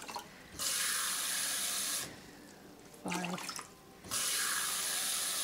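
Kitchen tap running in two steady spells of about a second and a half each, filling a measuring cup with water. Between the spells the cup is tipped out into a rice cooker pot of soaked rice, cup by cup, to reach the water measure for congee.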